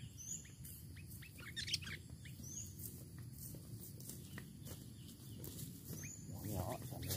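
Sooty-headed bulbul (kutilang) chirping: scattered short, sharp chirps and a few quick rising high notes, over a faint low rumble.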